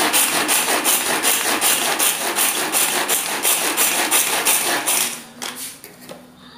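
Hand-operated vegetable chopper chopping tomatoes coarsely: a fast run of rasping, whirring strokes, about three or four a second, that stops about five seconds in.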